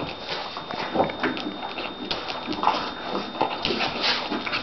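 Olde English Bulldogge puppies scuffling in play, with irregular clicks and rustles of paws and claws on a tile floor and a fabric mat.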